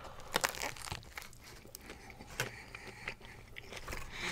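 Biting into a Jersey Mike's Italian sub and chewing close to the microphone: a bite near the start, then a scatter of crunchy clicks and crackles from the bread in the mouth.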